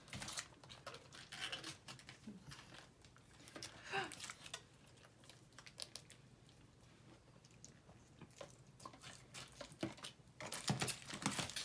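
Scattered small clicks, taps and crinkles of takeout food packaging being handled: cardboard nugget boxes and plastic sauce cups being opened and set out. The clicks come thicker near the end.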